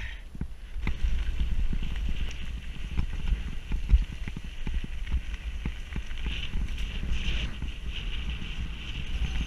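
Mountain bike rolling fast over bumpy grass and dirt track, picked up by a point-of-view action camera: a continuous low rumble with frequent knocks and rattles as the bike and camera jolt over the rough ground.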